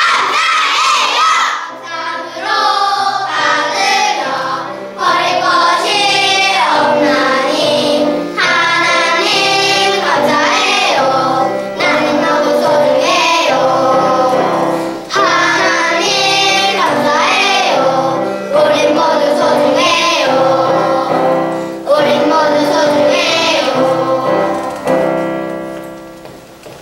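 A group of young children singing a song together in unison over a steady instrumental accompaniment. The song winds down and fades near the end.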